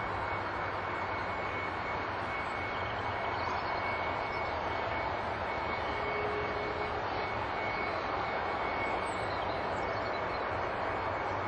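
Jet airliner engine running steadily at idle, a constant high whine over a broad even rush.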